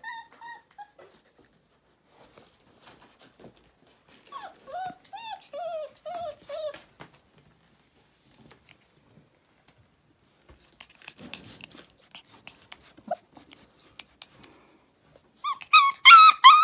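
Four-week-old German Shepherd puppies whimpering and whining in short cries that bend up and down: a few at the start, a run of them about four to seven seconds in, then a loud, quick series of high whining yelps near the end. Faint scuffling and clicks come in between.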